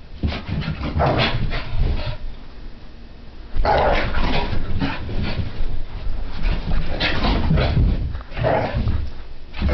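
Brittany spaniel puppy giving short bursts of barks and yips in a play frenzy (zoomies), mixed with thuds and scrabbling as she races over the floor and couch.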